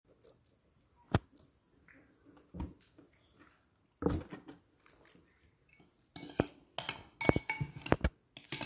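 A raw plucked duck being handled on a wooden chopping block: a few separate knocks and soft wet handling sounds. Then, from about six seconds in, a quick run of clinks and scrapes from a porcelain bowl being picked up and handled.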